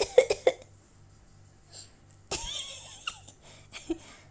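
A child coughing when asked to: a quick run of about four short coughs at the start, then one longer cough a little over two seconds later.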